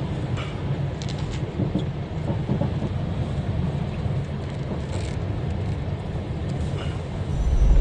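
Storm-force wind buffeting the microphone: a dense low rumble of noise with scattered clicks. Music comes in near the end.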